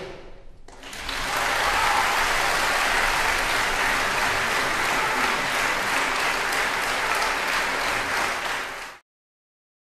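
Audience applauding, a dense steady clapping that builds within about a second and cuts off abruptly near the end.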